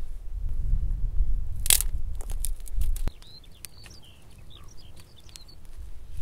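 Small kindling fire of dry twigs crackling, with sharp scattered pops through the second half. Before it, a low rumble and one loud, brief scrape.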